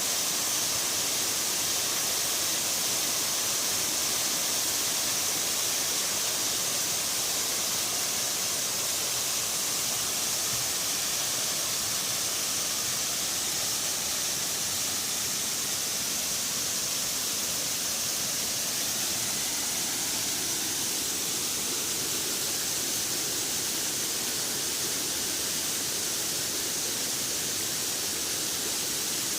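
Waterfall and mountain stream rushing steadily, an even wash of water noise with no change throughout.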